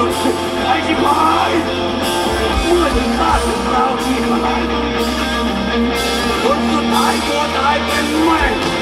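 Live rock band playing loudly with a lead singer, heard from the audience.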